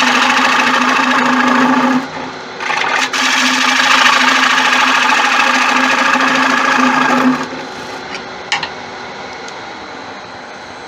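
Turning tool cutting into a spinning wooden bowl on a lathe, taking the centre down: a loud, steady cutting hiss with a brief break about two seconds in. Around seven seconds in the cutting stops and only the lathe is heard running, quieter.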